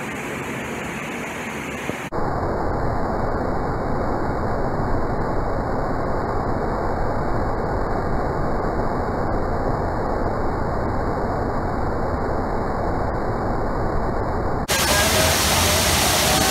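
Waterfall (Sgwd yr Eira) pouring down a rock ledge: a steady rushing of water that gets louder and fuller near the end, heard from right behind the falling curtain of water.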